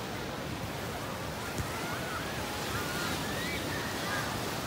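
Surf washing up on a sandy beach: a steady rushing hiss of waves.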